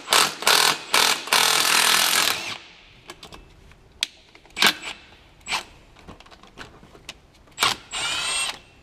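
Milwaukee M12 stubby cordless impact wrench hammering on a bolt to undo it: a few short bursts, then a run of about a second, then a few clicks. Near the end comes another short burst and a second run with a steady whine in it.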